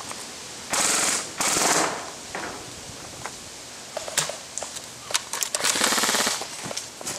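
Battery-powered airsoft electric gun firing full-auto in three short bursts, a rapid mechanical buzzing rattle of the gearbox cycling, with a few sharp single clicks between them.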